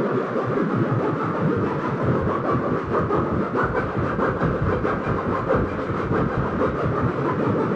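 Waldorf Quantum synthesizer playing a noisy, grainy patch: a dense crackly texture made of many short grains, with no clear pitch or melody.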